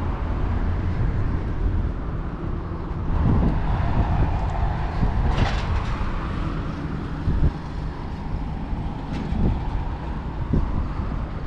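Steady rumble of passing vehicle traffic, with a brief louder rush about halfway through.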